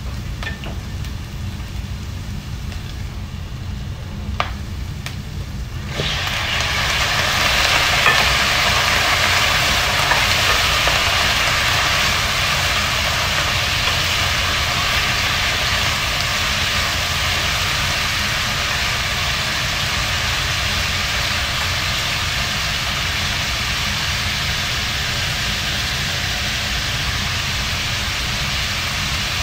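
Onions frying quietly in a pan, with a couple of clicks from the wooden spoon. About six seconds in, raw chicken feet go into the hot pan and a loud, steady sizzle starts suddenly and keeps going as they are stirred. A low steady hum runs underneath.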